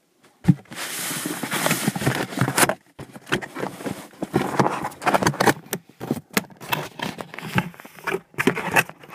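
Cardboard box handled from inside and its flap pulled open: a sharp knock about half a second in, then scraping and rustling of cardboard with scattered clicks and short pauses.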